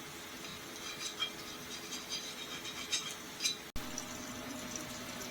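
Small metal band saw parts clinking and scraping lightly in a container of brake cleaner as the paint is stripped off them. Scattered light clinks, then an abrupt cut about four seconds in to a steady low hum.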